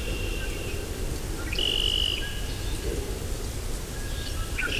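Spring swamp at night heard through a homemade parabolic dish microphone: scattered high-pitched chirps and peeps. One call is held for about half a second near the middle and another rises in pitch near the end, over a steady low rumble.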